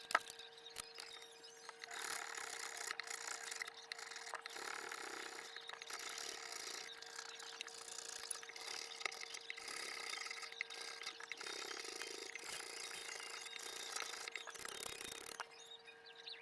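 Steady rubbing and scrubbing on an acoustic guitar's fretboard and frets as they are cleaned and polished by hand. The scrubbing starts about two seconds in and stops suddenly near the end.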